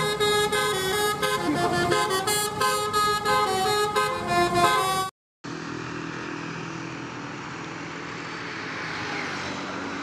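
A telolet 'basuri' multi-tone bus horn playing a stepped melody. After an abrupt cut about five seconds in, road traffic takes over: motorcycles and cars climbing the hill, engines and tyres making a steady noise.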